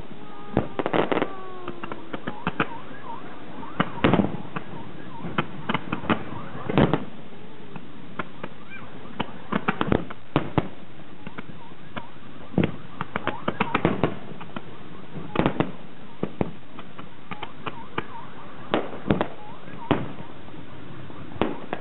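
Fireworks display: aerial shells and rising comets bursting in an irregular string of sharp bangs, some in quick clusters, over a steady background hiss.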